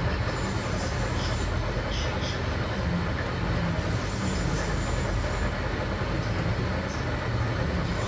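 Machine-shop machinery running steadily: a continuous low mechanical rumble, with a faint high whine that comes and goes.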